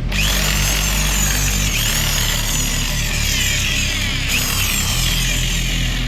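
Electric drill driving a homemade saw blade, running with a dense, high whirring rasp that sweeps up and down in pitch, over background music.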